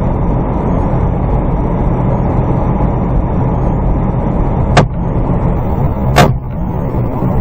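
Steady rumble of a moving vehicle, with two sharp knocks about a second and a half apart late on; the second knock is the louder.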